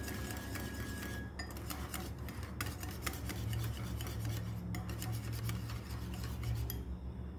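Wire whisk beating yogurt, egg white and cornstarch in a ceramic bowl: quick, continuous clicking and scraping of the wires against the bowl, stopping shortly before the end.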